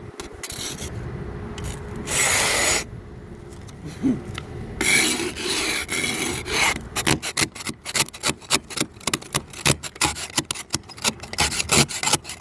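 Ice scraper scraping ice off a car windshield: two longer strokes, then from about seven seconds in a run of quick short strokes, about three a second.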